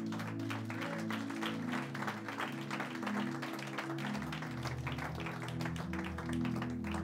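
Soft instrumental church music of sustained chords, with deep bass notes coming in about four seconds in. Scattered applause runs over it.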